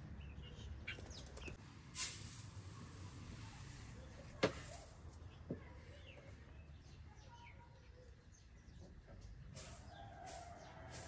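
Hens clucking faintly, with a few small clicks and one sharp tap about four and a half seconds in.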